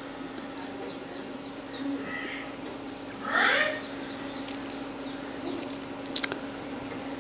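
Steady hum and hiss, with a brief harsh call about three and a half seconds in and a few quick clicks near the end.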